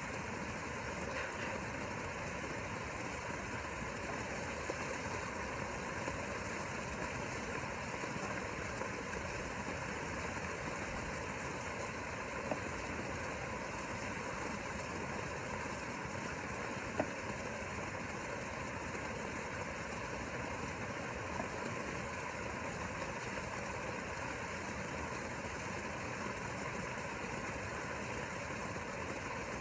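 Steady mechanical hum with a hiss over it: the pool's circulation pump running, with a couple of brief faint clicks.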